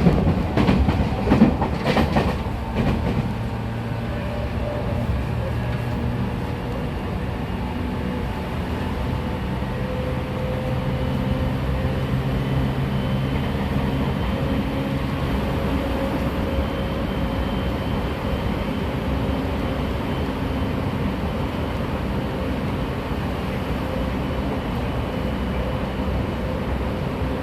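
JR 209-500 series electric train (set M72) running, heard from inside the car: clicks and knocks of the wheels over the rails in the first few seconds, then steady running noise with motor and inverter hums that come and go. This set, re-equipped with a reused VVVF inverter, still makes an abnormal running noise, reduced after inspection but not gone.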